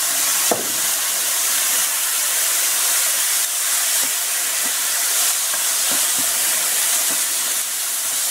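Ground beef and chopped onion frying in a hot non-stick pan with a steady sizzle, just after soy sauce has gone in, stirred with a wooden spoon.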